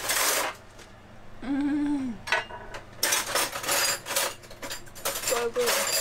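Close-up eating sounds: a mouthful of homemade pasta slurped and chewed with an open mouth, in rough bursts with quieter gaps between. A short hummed voice sound comes about a second and a half in, and another brief one near the end.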